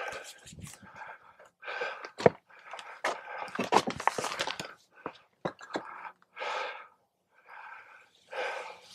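A man breathing hard and panting as he climbs, in uneven gusts with short pauses. Sharp clicks and scrapes of footsteps on loose rock come between the breaths.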